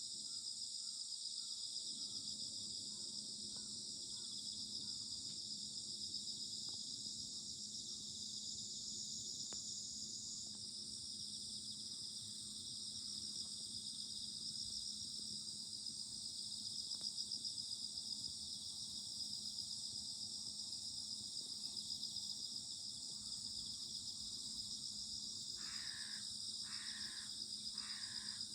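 Autumn insects, crickets, trilling in a steady dense chorus. Near the end a crow caws four times, about a second apart.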